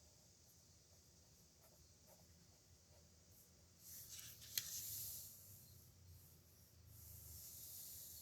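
Nib pen scratching across paper in two written strokes, about four seconds in and again near the end, with a sharp tick of the nib partway through the first.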